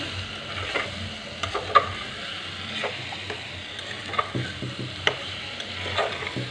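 Metal spoon stirring fried potatoes and pointed gourd through sizzling masala in an open pressure cooker pot: a steady sizzle with irregular scrapes and clinks of the spoon against the pot.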